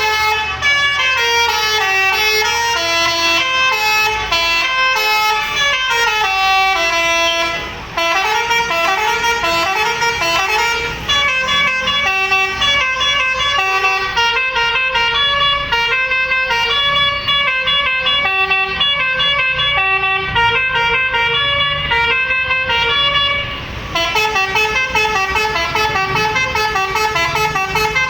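Indonesian bus 'telolet basuri' musical air horn playing a tune, a quick run of changing notes that continues with two brief pauses.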